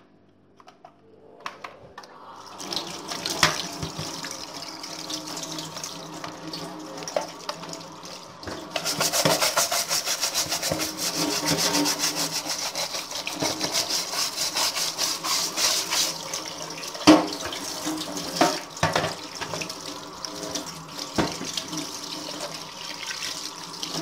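Tap water running into a stainless steel sink and splashing over a plastic vacuum cleaner floor nozzle as it is rinsed and turned under the stream. The water starts about two seconds in and gets much louder from about nine seconds in, with a few sharp knocks near the end.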